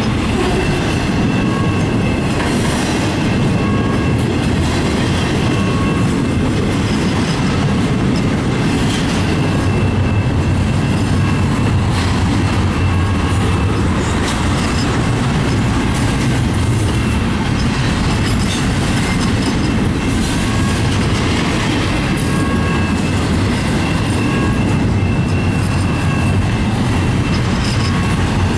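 Double-stacked container cars of a long intermodal freight train rolling past close by: a loud, steady rumble of steel wheels on rail, with short high wheel squeals coming and going every couple of seconds.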